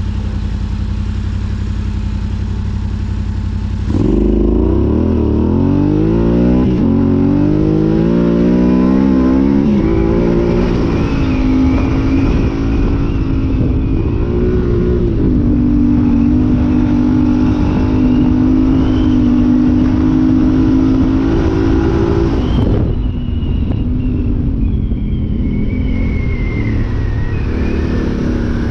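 Yamaha Tenere 700's parallel-twin engine with an Arrow high exhaust idling, then accelerating hard from about four seconds in, the revs climbing again and again through several gear changes. It settles at a steady speed, then the throttle is shut about five seconds before the end and the revs fall away, and it pulls again near the end.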